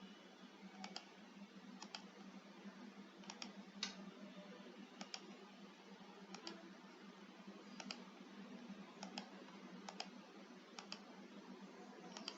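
Faint, scattered clicks of a computer mouse, about one every second, some as quick double clicks, over a low steady hum.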